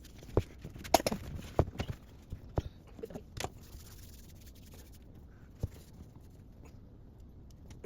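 Clicks and knocks of kitchen-sink drain parts being handled and fitted: a quick run of them in the first few seconds, then a lone knock near six seconds.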